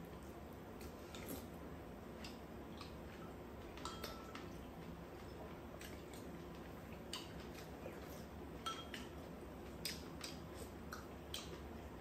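Spoons and chopsticks tapping and scraping against bowls and a frying pan during a meal: scattered light clinks over a faint steady background.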